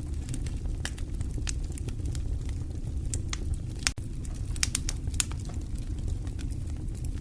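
Wood fire burning in a fireplace: irregular sharp crackles and pops over a steady low rumble of the flames. There is a momentary dropout about four seconds in.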